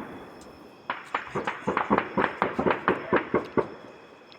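Rifle fire: a rapid string of sharp shots, about five or six a second, starting about a second in and stopping shortly before the end.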